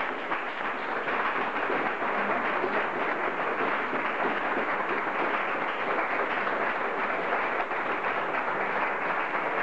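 A roomful of people applauding, a dense unbroken clapping that holds steady throughout.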